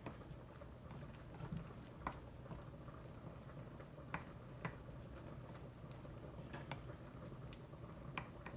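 Pancit canton cooking in a pan: about a dozen scattered, irregular light clicks and ticks over a low steady hum.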